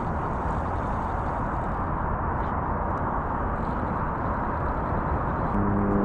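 Steady rumble of road noise inside a moving car. Near the end, a steady low humming tone with several overtones comes in over it.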